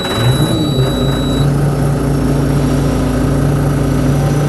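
Bobcat B900 backhoe loader's diesel engine just started, picking up briefly and then settling into a steady idle. A thin high-pitched warning tone sounds over it for the first second and a half, then stops.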